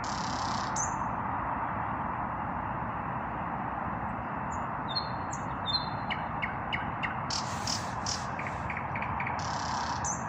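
Nightingale singing in varied phrases: rows of quick repeated clicks, short clear whistled notes and harsh rasping bursts, over a steady background rush.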